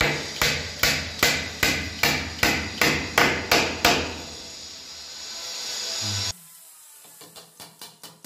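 Hand hammer with a wooden handle driving a nail into a plywood board, about eleven steady, evenly spaced blows in the first four seconds. After an abrupt cut comes a run of quicker, lighter taps.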